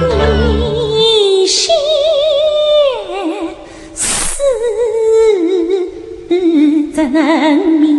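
Yue opera aria sung by a high female voice in long, sliding phrases with a wide, wavering vibrato. A short hiss cuts through about four seconds in.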